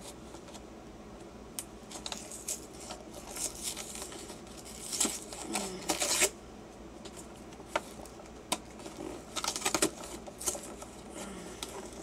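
Packaging of a Pokémon card collection box being torn open and handled: irregular crinkling and rustling with taps and clicks, loudest about five to six seconds in and again near ten seconds.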